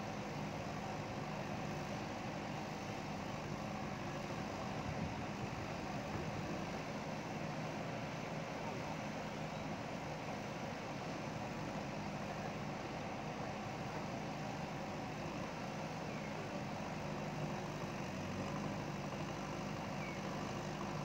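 Diesel engine of a JCB backhoe loader running steadily at an even pitch.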